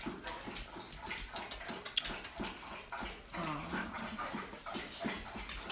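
A pet animal giving one short, low whining call about three and a half seconds in, over many small clicks and rustles.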